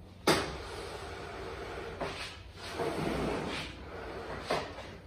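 Heavy metal table being shifted on a laminate floor: a loud knock just after the start, a few seconds of scraping, and another knock near the end.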